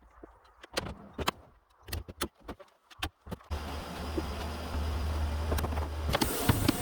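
Several sharp knocks and clicks, then about halfway through a motor starts running with a steady low hum and stays on, with more knocks over it.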